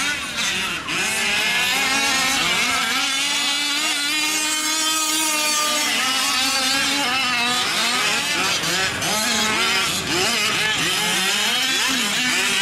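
Several gas-powered 5th-scale RC off-road trucks racing, their small two-stroke engines revving up and down and overlapping. One holds a steady high pitch for a couple of seconds near the middle.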